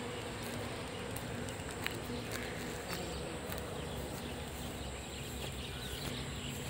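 Steady outdoor background noise with a low rumble, a faint steady hum and a few light clicks.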